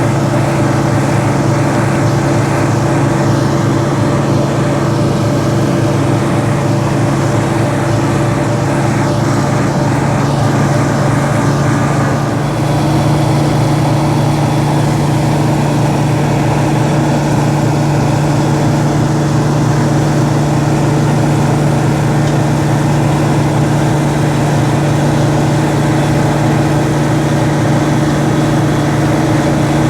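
An almost 40-year-old combine harvester running steadily under load while combining barley, its engine note stepping up slightly about twelve seconds in.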